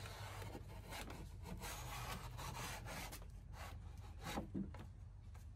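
Faint wood-on-wood rubbing and scraping as a Douglas fir board is pushed and slid into place against the bench, with a few light knocks, the loudest about four and a half seconds in.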